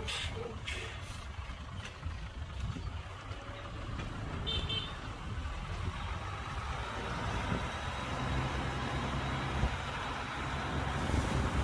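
Heavy diesel earthmoving machinery running: a steady low engine rumble that grows slightly louder in the second half, with a brief high tone about four and a half seconds in.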